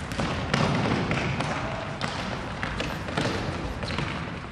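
A string of sharp knocks and thuds from a futsal ball being kicked and bouncing, mixed with players' running feet on a wooden gym floor, in the echo of a large sports hall.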